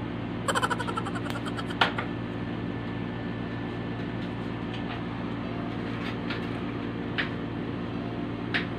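Electric fan running with a steady hum. A quick run of light clicks comes about half a second in, a sharper click just before two seconds, and two more single clicks near the end.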